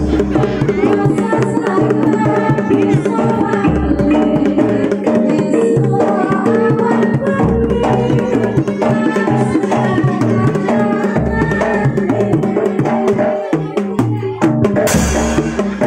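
Live Javanese jaranan accompaniment music: hand drums beating a steady rhythm over sustained pitched gamelan-style percussion. A brief hissing crash sounds near the end.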